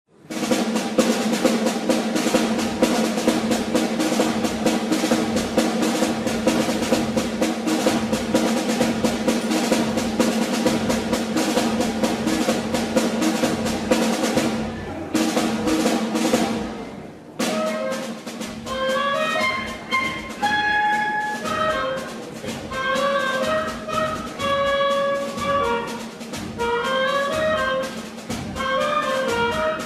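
Brass and percussion music. It opens with a long drum roll under a held brass chord, then about two-thirds of the way in it breaks into a brass melody over a drum beat.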